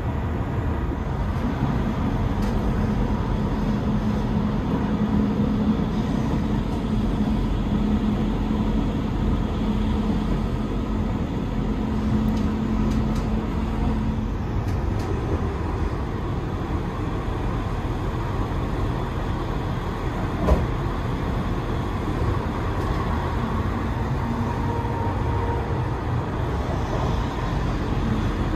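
Steady running noise of a B5 passenger coach rolling along the track at speed, heard from inside the coach, with a low hum in the first half that fades out. A single sharp knock about two-thirds of the way in.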